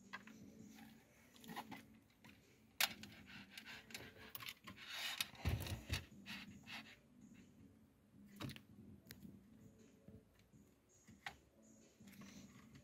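Faint rustling of wire bundles and clicks of plastic connectors as the wiring harness is plugged into the back of an aftermarket car stereo head unit. Sharp clicks come about three seconds and eight and a half seconds in, and a louder rubbing with a dull thud comes around five to six seconds in.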